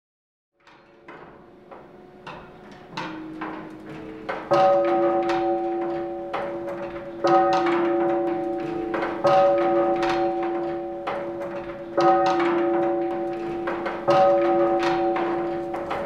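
Tower bells being change-rung: full-circle swinging church bells striking one after another at about two strikes a second, each note ringing on. The ringing starts faint and grows louder, with some bells striking much louder than others.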